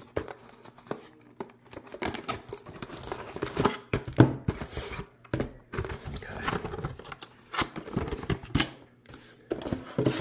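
Cardboard trading-card boxes being handled: rustling, scraping and tearing of cardboard as the mini boxes are lifted out of the outer box, with scattered taps and a sharper knock about four seconds in.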